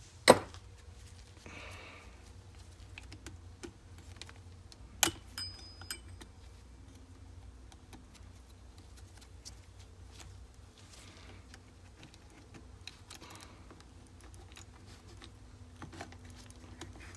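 Tools and small metal parts clattering on a wooden workbench during disassembly of an RC car's chassis. A sharp knock comes just after the start, and another about five seconds in is followed by a brief metallic ring. Light scattered clicks of a hex key working the brake linkage follow.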